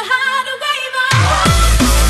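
Electronic dance music: a sparse break of high, wavering synth notes with no bass, then heavy bass and drums come back in about a second in.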